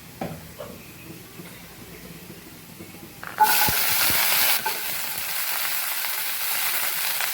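Ginger and garlic frying in hot oil in a kadai: quiet at first with a few faint clicks, then a sudden loud sizzle about three and a half seconds in that carries on steadily.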